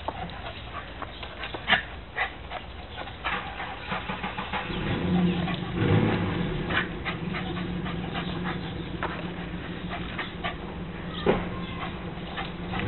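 Small dog whimpering and yipping in short, sharp sounds scattered throughout as it chases a squirrel around a tree stump. A steady low hum joins about five seconds in.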